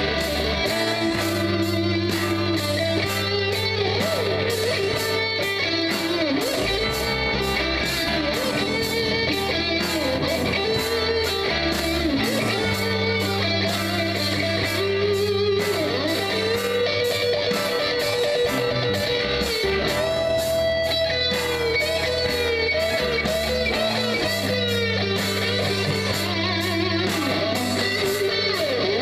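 Rock band playing an instrumental jam: an electric lead guitar with bending notes over rhythm guitar, bass and drums keeping a steady beat.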